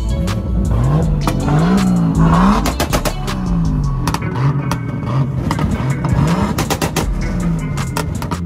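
A car engine revved over and over, its pitch climbing and dropping about ten times in quick succession.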